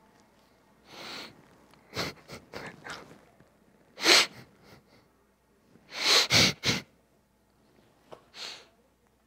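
A man sobbing: sharp sniffs and gasping breaths in separate bursts, the loudest about four seconds in and three close together around six seconds.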